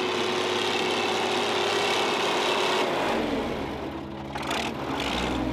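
County four-wheel-drive tractor's Ford diesel engine running steadily as it works a flat-lift cultivator across the field. About three seconds in, the sound shifts lower and deeper.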